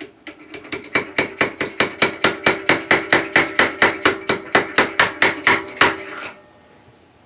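Rapid, even metal-on-metal strikes, about four to five a second, with a ringing note: a steel shaft being worked up and down as a slide hammer to drive a new bearing onto a lathe headstock spindle. The first taps are light, then the strikes grow heavier and stop abruptly about six seconds in.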